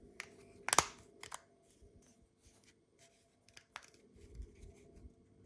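Plastic key-fob shell being handled and fitted: one sharp plastic click a little under a second in, then a few lighter clicks and faint handling rustle as the new cover is pressed on.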